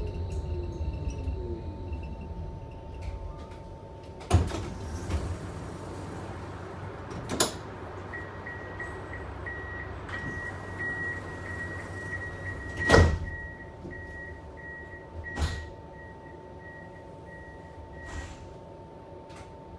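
Vienna tram braking to a stop, its motor whine falling and the rumble dying away. Then the sliding doors work with several sharp knocks, the loudest about two-thirds of the way through, while a high beeping repeats for about ten seconds in the middle.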